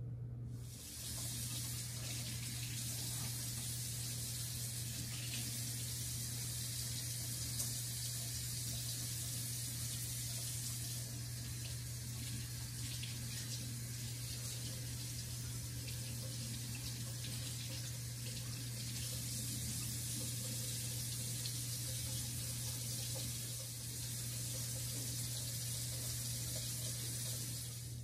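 Kitchen tap running steadily into the sink while napa cabbage is rinsed under it. The water starts about a second in and is shut off near the end.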